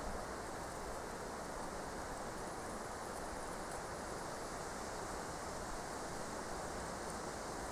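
Steady, even background noise with no distinct event standing out.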